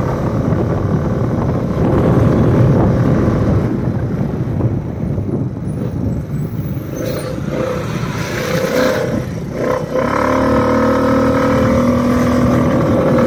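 Wind rushing over the microphone of a moving vehicle, with its engine running underneath. About ten seconds in the rush eases and a steady engine drone with a clear hum comes to the fore.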